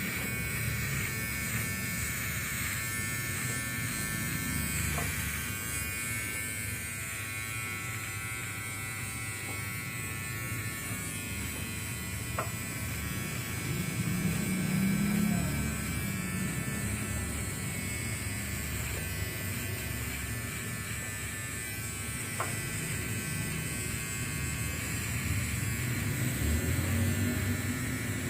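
Barber's electric trimmer buzzing steadily as it shaves a head down close to the scalp, with a few faint clicks now and then.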